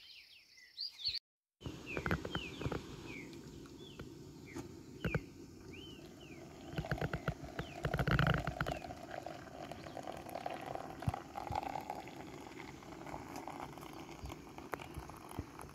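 Water poured from a metal kettle into a cloth filter for several seconds, with birds chirping throughout and a few knocks of things handled on the table early on.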